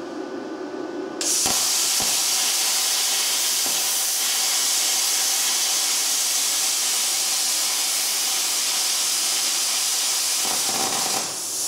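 Luch Profi CUT-50 air plasma cutter cutting mild steel: a loud, steady hiss from the arc and air jet that starts abruptly about a second in and stops shortly before the end.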